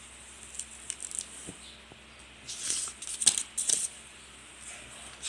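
A hardcover picture book being opened and its pages turned: a few light paper clicks, then a louder run of paper rustling and flapping between about two and a half and four seconds in.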